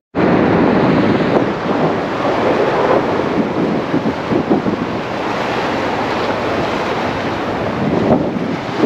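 Wind buffeting the microphone on the open flybridge of a motor yacht running at speed, in uneven gusts over a steady rush of water.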